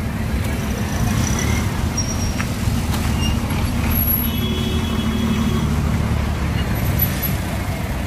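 Road traffic with a large vehicle's engine running close by: a steady low rumble.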